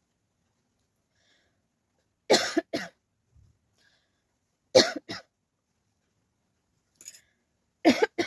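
A person coughing in short bursts: a double cough about two seconds in, another double cough about five seconds in, then a faint cough and a louder run of coughs near the end.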